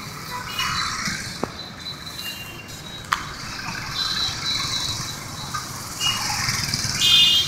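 Road traffic with several short vehicle horn toots, the loudest near the end, and a single sharp click about three seconds in.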